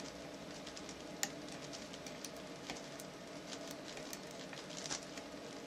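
Faint, scattered small clicks and ticks of a diamond lock pick working the pins of a 7-pin BEST padlock, over a steady low hum.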